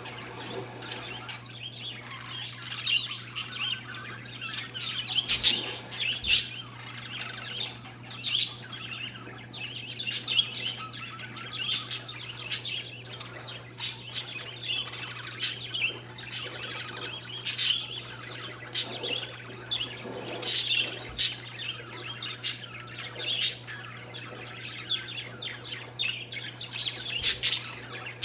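Caged parakeets and zebra finches chirping, a dense run of short sharp calls several a second with louder ones standing out now and then, over a steady low hum.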